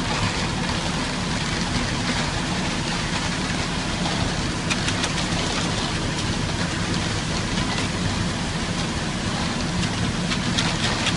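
Concrete mixer truck's engine running steadily, with wet concrete being scraped and raked by hand; a few sharper scrapes come about five seconds in and near the end.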